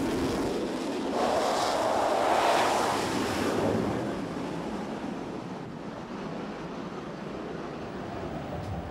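Rushing jet noise of a twin-engine Rafale fighter being catapulted off the carrier deck, swelling about a second in and dying away after about four seconds, then a steady rush of wind across the flight deck.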